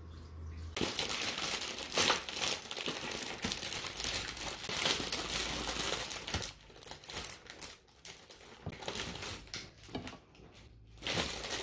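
A cookie package's wrapper crinkling as it is opened and handled, dense for several seconds after starting about a second in, then in scattered crackles that stop near the end.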